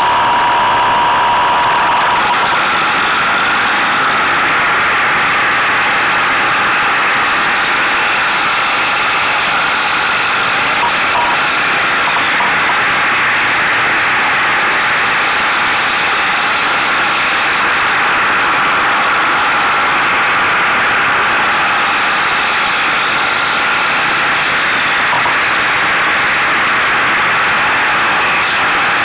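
Buell motorcycle riding at speed: a loud, steady rush of wind and engine noise, heard through a camera mounted on the bike's mirror stalk.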